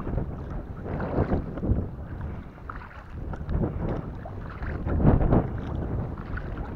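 Water splashing and lapping against a kayak's hull as it is paddled across choppy water, in irregular surges that are loudest about five seconds in. Wind rumbles on the microphone underneath.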